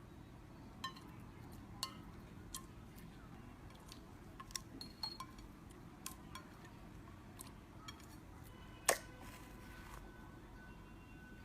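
Slime being handled, giving faint scattered clicks and small pops, with one louder pop about nine seconds in.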